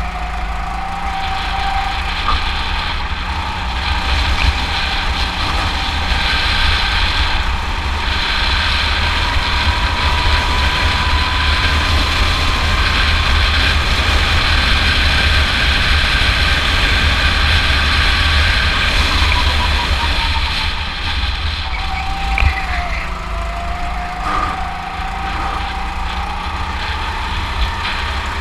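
Go-kart engine running hard, heard from on board the kart. Its pitch climbs slowly along a straight, drops briefly about twenty-two seconds in as the kart lets off, then climbs again.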